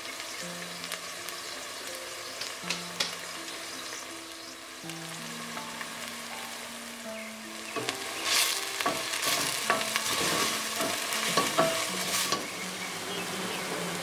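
Tomato-and-onion sauce with spices sizzling in a stainless steel pot. From about 8 seconds in, a wooden spoon stirs it for some four seconds: the sizzle grows louder, with scraping and clicking against the pot.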